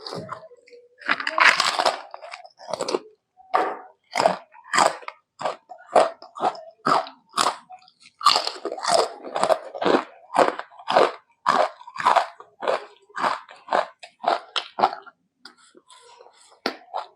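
Close-miked chewing and biting of food, crunchy mouthfuls at a steady rhythm of about two chews a second, with a louder, longer bite about a second in.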